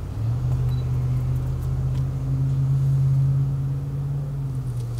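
A steady low hum of a running motor or engine. It swells in just after the start, holds one pitch and eases slightly near the end, with a few faint clicks over it.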